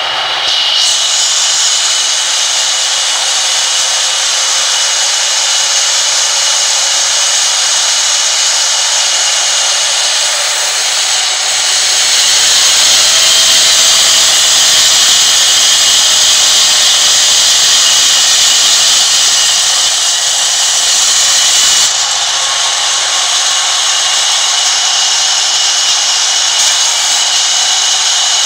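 Sawmill band saw cutting lengthwise through a long timber: a steady high whine over the hiss of the blade in the wood. It grows louder partway through and drops abruptly about 22 seconds in.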